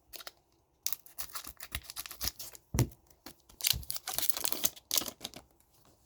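Hockey trading cards being handled and slid against each other in the hand: dry rustling and scraping in short clusters, with a soft knock about three seconds in.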